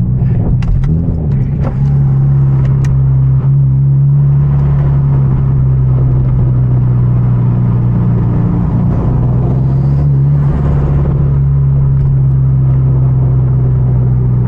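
Hyundai Genesis Coupe 2.0T's turbocharged four-cylinder engine droning steadily at cruise, heard from inside the cabin, with a few short sharp cracks in the first few seconds.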